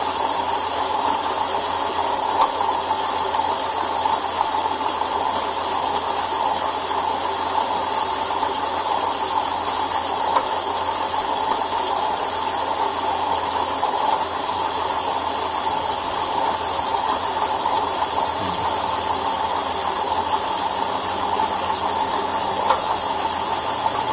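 Spoked wheel spinning at an even speed, a steady mechanical whirring hiss with no change in pace, and a couple of faint ticks.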